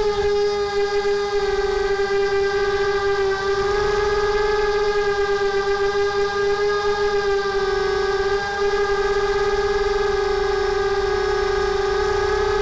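Mini quadcopter's Sunnysky brushless motors and propellers whining steadily as it flies, the pitch wavering a little with throttle, picked up close by its onboard camera.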